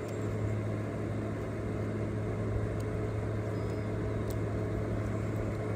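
A steady, even machine hum, with a few faint light clicks of small parts being handled.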